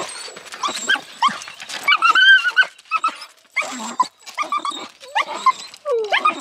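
Excited dog whining and yelping in short, high calls, with one longer whine that rises and falls about two seconds in.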